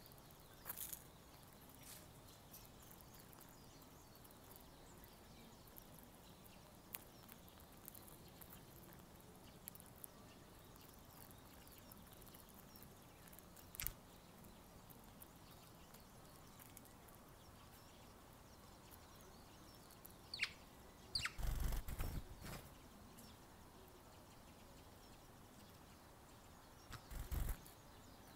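Eurasian tree sparrows pecking seed from a plastic feeder tub: scattered faint taps and seed rattles, with a short louder burst of knocking and scuffling about three-quarters of the way through and another near the end.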